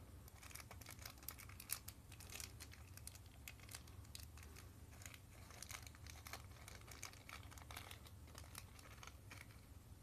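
Faint crinkling and tearing of a small clear plastic bag being worked open by hand: a run of irregular crackles.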